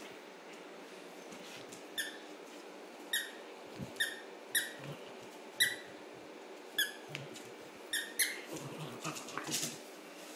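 A plush squeaky carrot dog toy squeaking in short, high squeaks, about eight times at roughly one a second, as a miniature pinscher bites down on it. Near the end comes a scuffle of clicks and rustling as the toy is tugged about.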